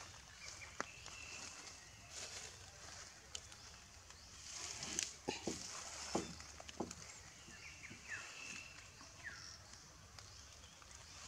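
Macaques moving over dry leaf litter and fallen branches: rustling and a few sharp knocks, bunched about five to seven seconds in, over a steady high hiss. A few short high calls that fall in pitch come near the end.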